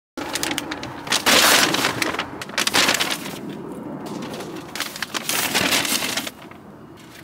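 Paper grocery bags rustling and crinkling as they are handled and loaded, in loud irregular surges that die down about six seconds in.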